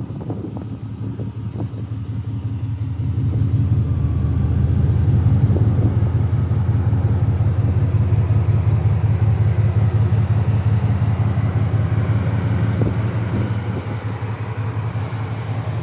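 Classic Pontiac Firebird's engine and exhaust running while driving, a steady low note that builds over a couple of seconds about three seconds in, holds, then eases slightly near the end.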